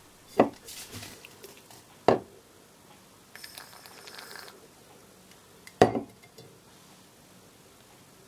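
Aerosol degreaser can spraying with a short hiss of about a second, a little before halfway. Around it, three sharp clicks and knocks as the spray can and small plastic switch parts are handled and set down, the last the loudest.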